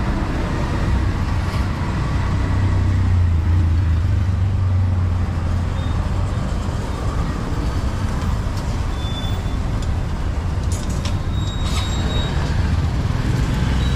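Street traffic: motor vehicle engines running, with a steady low hum that is strongest in the first half. A few short high-pitched clinks come in the second half.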